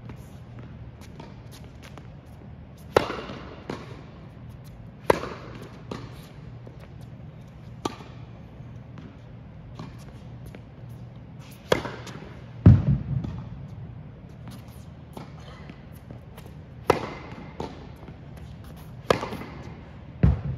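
Tennis rally on an indoor hard court: sharp pops of racket strings striking the ball every second or two, loud from the player near the microphone and fainter from the far side, each ringing briefly in the large hall. A louder, deeper thud comes just past halfway.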